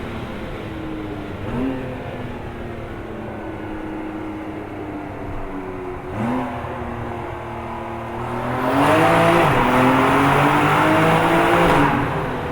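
Porsche 992 Carrera S twin-turbo flat-six with a Capristo valved exhaust, running at low revs with two short throttle blips. About two thirds of the way in it revs up and gets much louder for about three seconds, then eases back.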